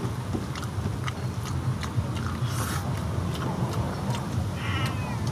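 Wet mouth clicks and smacks of someone chewing a mouthful of rice, coming irregularly about twice a second over a steady low rumble. A short, wavering animal cry sounds near the end.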